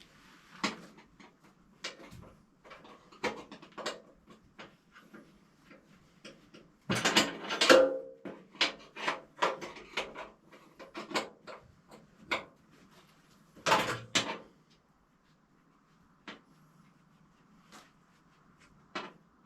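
Irregular knocks, clicks and clatters of tools and metal parts being handled, with a loud rattling cluster about seven seconds in and another near fourteen seconds, then only a few isolated knocks.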